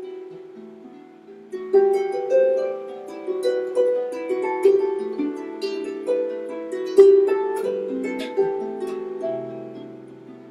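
Harp played slowly and gently: single plucked notes that ring on and overlap. A held chord fades at first, a new phrase begins about two seconds in, and a low bass note near the end rings out and dies away.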